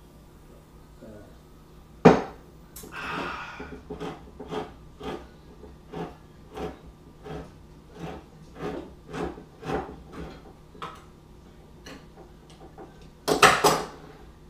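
Handheld manual can opener biting into a can with a sharp click, then cranked around the rim in a long run of even clicks, about two a second. A louder clatter follows near the end.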